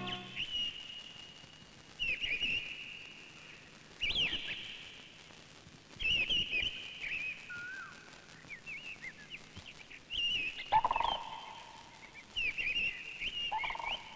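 Birds chirping in quick high-pitched trills, coming in short bursts about every two seconds. There is a louder, lower-pitched sound about eleven seconds in.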